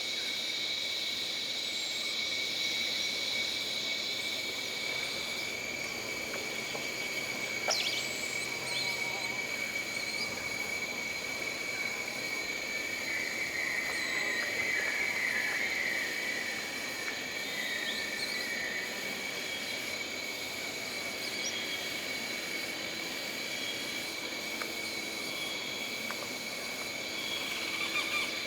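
Jungle ambience of insects droning in a steady high, even tone, with a few short calls scattered through and a run of rapid chirps in the middle.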